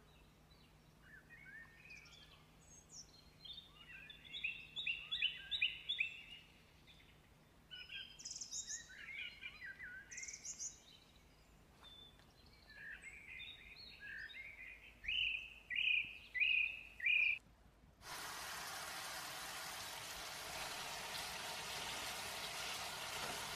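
Small birds singing in short repeated chirping phrases, the last few a quick run of clear notes. About eighteen seconds in, this gives way to a tap running steadily onto strawberries in a colander in a stainless-steel sink.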